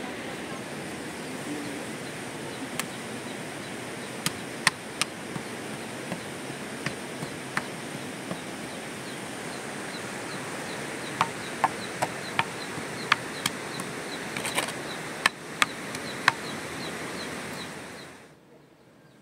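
Steady hiss of rain, with scattered sharp taps and clicks. A faint insect chirp, about three a second, joins about halfway through, and everything cuts off near the end.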